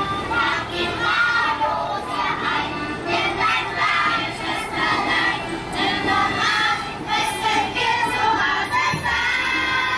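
A group of children singing and calling out together, many voices at once, with music.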